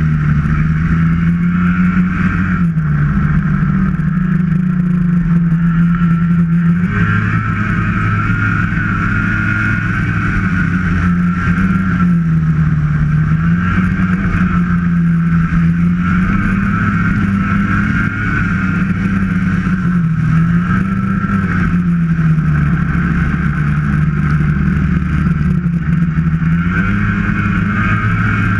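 Snowmobile engine running steadily at trail-cruising speed, its pitch easing down and climbing back up several times as the throttle is eased and reapplied.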